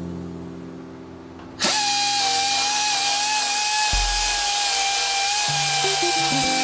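A handheld power tool starts about a second and a half in and runs for about five seconds at a steady high whine with a hiss, then cuts off, over acoustic guitar background music.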